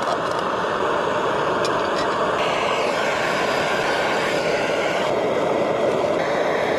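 A steady rushing noise that holds an even level throughout, with no distinct strokes or pitch.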